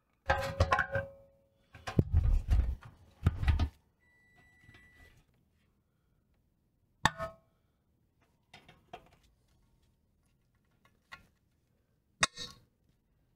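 Close-up clinks, clicks and scrapes of hand tools on the small steel parts of a pressed-steel toy truck being reassembled. A quick run of metallic clinking with brief ringing fills the first few seconds, a faint short tone follows, then single sharp clicks come about seven seconds in and again near the end.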